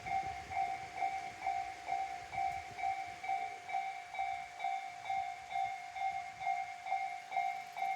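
Railway level-crossing alarm of the Tobu Railway type known as 'Tobu sound C' ringing, an electronic ding repeating steadily about twice a second.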